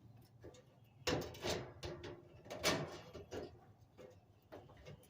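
Handling noises from working on a clothes dryer: a few sharp knocks and two short bursts of clatter, the louder one about a second in, as metal parts and tools are moved about.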